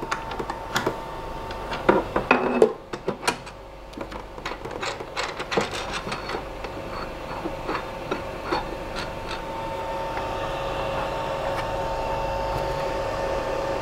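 Sharp clicks and small knocks of hands on the Creality LD-002H resin printer's build plate as its locking screw is tightened during bed leveling. Under them runs a steady hum of two fixed tones that gets louder in the second half.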